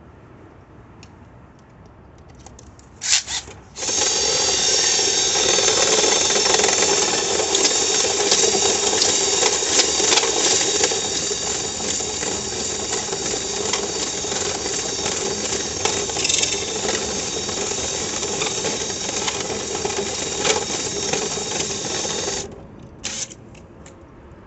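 Power drill running at a steady speed for about 18 seconds. A short blip of the motor comes just before the long run and another just after it.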